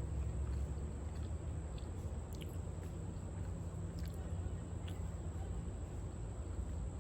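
Outdoor ambience: a steady low rumble with a few faint, short high chirps or ticks scattered through it.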